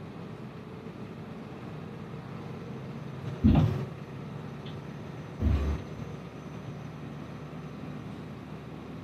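Steady engine and road drone inside a moving coach, with two brief heavy thumps about two seconds apart near the middle.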